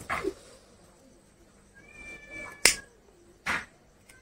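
Pocket lighter being struck to light a scrap of paper: a sharp click a little after halfway and a short scraping flick nearly a second later, with a faint thin steady tone just before the click.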